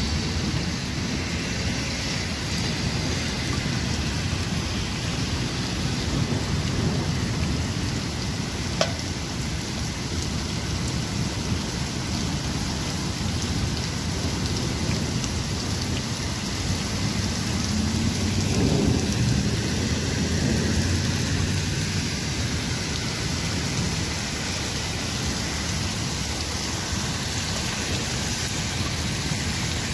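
Heavy rain falling steadily, with a deep rumble underneath that swells a little past the middle.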